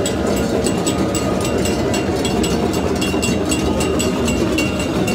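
Loud, steady din of a regatta crowd and boats at the waterside, cut through by quick, even metallic strikes, about three or four a second.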